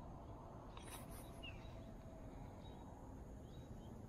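Faint outdoor background noise, a low steady rumble, with one brief bird chirp about a second and a half in.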